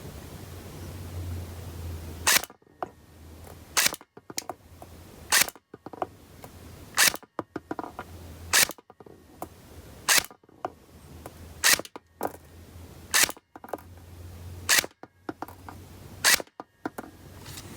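Poseidon Punisher-1 airsoft gun firing about ten single shots at an even pace, one every second and a half or so. Each shot is a sharp crack, over a low steady hum.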